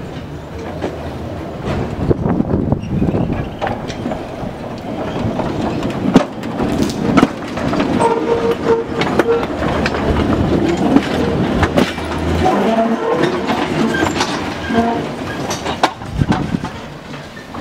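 Vintage electric tram running along the track, its steel wheels clicking and clanking over rail joints and points, with a rumble underneath.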